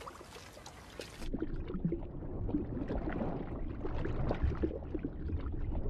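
Water splashing and sloshing as a fishing net full of small swarming fish is hauled up out of a channel. It is faint for the first second or so, then the splashing turns busy and irregular and grows louder.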